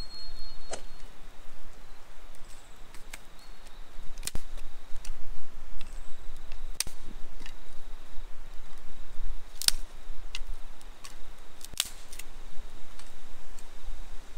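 Newly lit wood campfire crackling, with sharp pops at uneven intervals, the loudest about ten and twelve seconds in.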